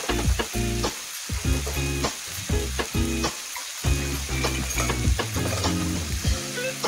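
Chicken feet frying in oil in a non-stick wok, sizzling steadily, over background music.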